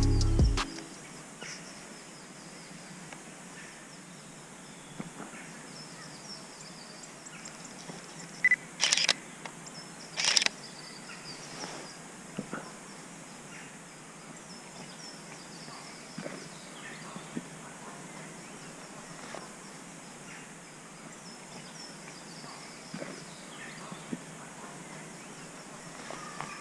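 Background music cutting off in the first second, then quiet outdoor ambience with faint distant birdsong. It is broken by a few short, sharp clicks about nine and ten seconds in.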